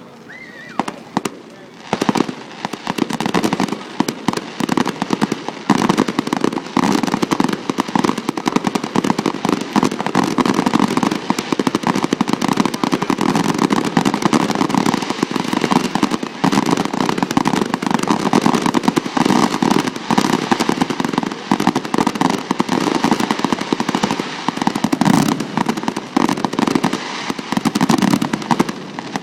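Fireworks display going off, with a dense stream of rapid, overlapping bangs that begins about two seconds in and keeps going.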